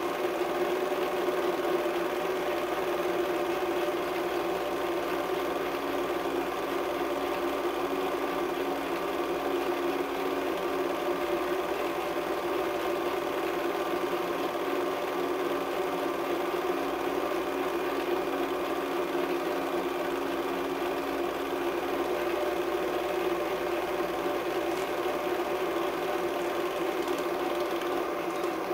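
Film projector running, a steady mechanical whir with hum; one of its hum tones stops about three-quarters of the way through.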